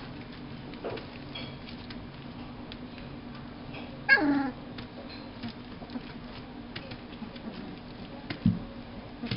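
Flat-coated retriever puppy, three weeks old, giving one short yelp about four seconds in that falls steeply in pitch. Faint scratches and rustles of puppies moving on newspaper, with a brief low sound near the end.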